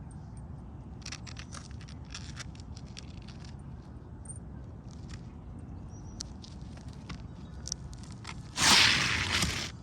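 Asphalt roof shingles crackling and crunching as they are handled and walked on, with one loud scrape about nine seconds in.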